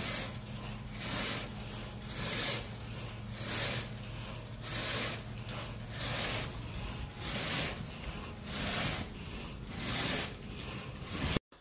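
Carpet rake dragged in quick, regular strokes through the pile of a thick shag rug, a scratchy rubbing about three strokes every two seconds, grooming the pile.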